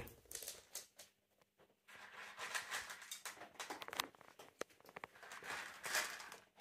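Siberian husky puppy eating dry kibble from a steel bowl: faint, irregular crunching and small clicks, starting about two seconds in.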